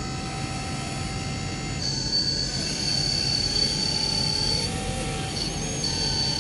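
Electric motors of a 1/14-scale RC wheel loader whining as it drives up a dirt slope with a loaded bucket, a thin high-pitched whine that starts, stops and changes pitch in steps with the throttle, over a low rumble.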